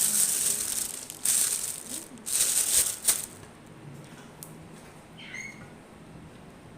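Three bursts of rustling and rattling in the first three seconds, like something being shaken or handled, followed by quiet room tone.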